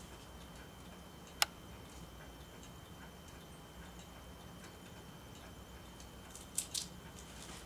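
Grey squirrel gnawing kernels off a corn cob: faint scattered ticks, one sharp click about a second and a half in and two quick clicks near the end, over a low steady hum.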